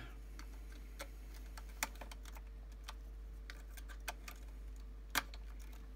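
Scattered small plastic clicks and taps as a USB stick is handled and pushed into a USB adapter port, the sharpest click about five seconds in, over a faint steady electrical hum.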